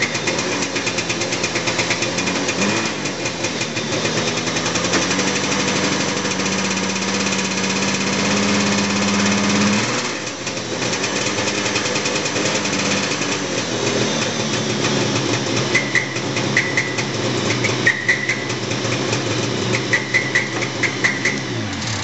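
A 1981 Arctic Cat Jag 4000 snowmobile's 440 two-stroke engine running at idle with a repeated high metallic chirp. The owner says the chirp sounds like metal rubbing metal inside the clutch and happens only at idle. The engine shuts off at the very end.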